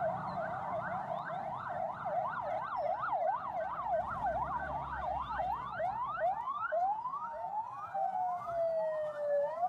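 Rescue 1122 ambulance siren in a fast yelp, rising and falling about three times a second. Near the end the sweeps slow into one long falling wail, which turns upward again at the end.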